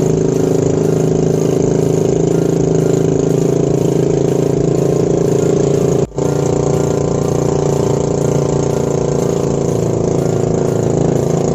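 Fishing boat's engine running steadily at cruising speed, with a brief dropout about six seconds in.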